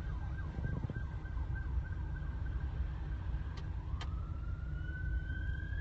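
Emergency-vehicle siren heard from inside a moving car: a fast yelp of about four falling sweeps a second, which changes about three and a half seconds in to a slow wail rising in pitch. The car's low road and engine rumble runs underneath.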